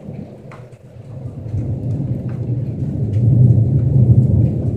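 Thunder rumbling: a deep roll that swells about a second and a half in and is loudest near the end. A few light ticks sound above it.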